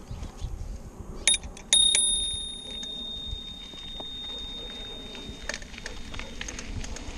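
Bicycle bell rung twice: a short ding about a second in, then a louder ring with a quick rattle of strikes that fades away over a few seconds. Underneath is the low rumble of a mountain bike rolling along a dirt trail.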